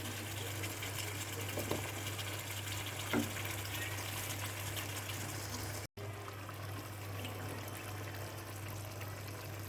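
Chicken frying in a pan, a steady sizzling hiss, with a low steady hum underneath.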